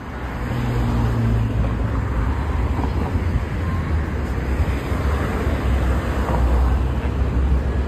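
Steady low rumble of road traffic on a city street, fading in at the start.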